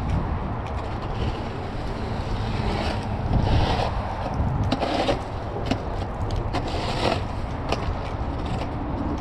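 City street noise: a steady low rumble of traffic with scattered short scrapes and clicks.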